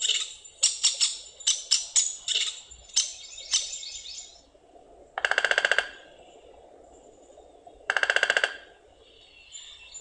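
Downy woodpecker: a quick series of sharp, high call notes, then two short drum rolls about three seconds apart, each a rapid, even burst of bill strikes on wood.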